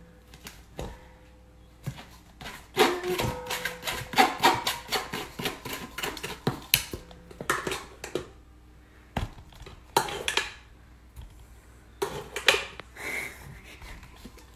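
A metal spoon scraping and clicking against a wire-mesh sieve as cooked potato is pushed through it into a stainless steel bowl. The clicks and scrapes come in quick runs, starting about three seconds in and busiest over the next five seconds, with shorter bursts later.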